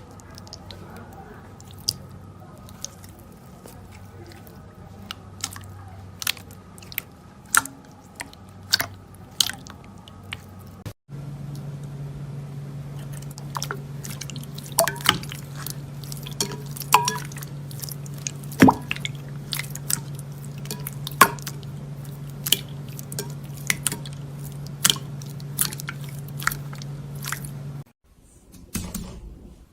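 Slime being squished and worked by hand, with sticky clicks and pops over a low steady hum. The sound changes abruptly twice as one clip cuts to the next.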